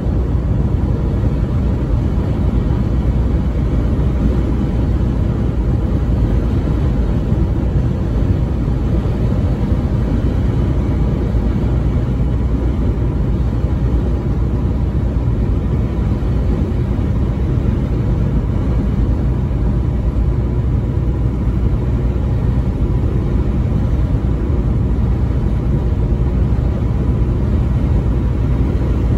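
Steady low road and engine rumble inside a vehicle's cabin cruising at highway speed, with no change over the whole stretch.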